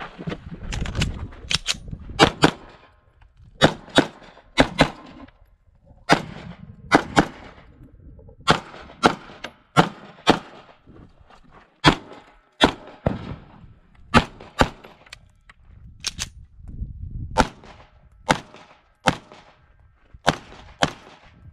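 Pistol shots fired mostly in quick pairs (double-taps), many pairs in a row with short pauses between them, as the shooter moves through a timed course of fire.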